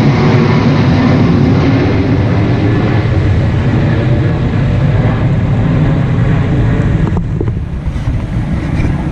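Military airplane flying low overhead, its engines giving a loud, steady roar that thins out a little about seven seconds in.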